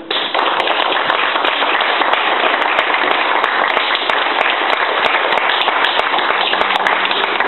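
Audience applauding at the end of a song, starting suddenly and holding steady, a dense patter of many hands clapping.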